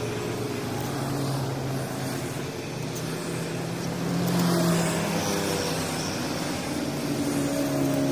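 An engine running steadily, a low hum with several pitches that rises a little about halfway through and then settles.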